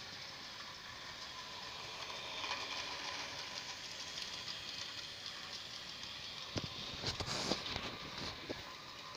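Jouef electric model train running on sectional track: a steady whir of the motor and wheels that grows louder as the wagons roll past, about two to five seconds in, then a few sharp clicks near the end.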